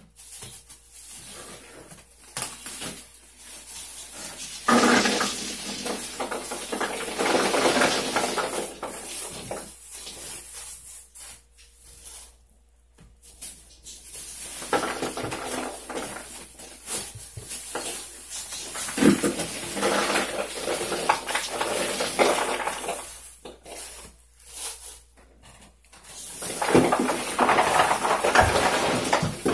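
Plastic bags rustling and whole tomatoes tumbling and knocking into a chest freezer as the bags are emptied, in three long bouts.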